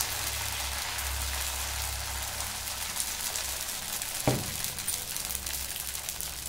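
Thick dosa batter sizzling steadily on a hot griddle, with a single knock about four seconds in.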